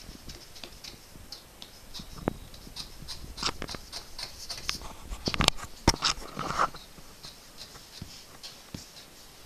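Scattered clicks, taps and scratching from a dog shifting under a couch on a wood floor while a toddler paws after it, with a few sharp knocks a little past the middle.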